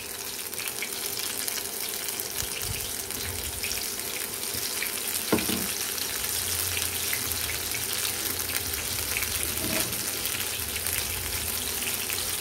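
Batter-coated onion rings (pakoda) deep-frying in hot oil in a pan: a steady crackling sizzle, with one short knock about five seconds in.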